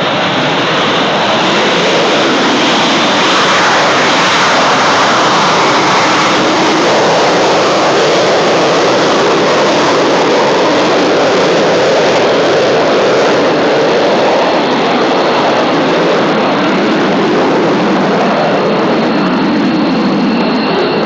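Panavia Tornado IDS jet's twin RB199 turbofan engines running loud and steady. A thin high whine comes in near the end.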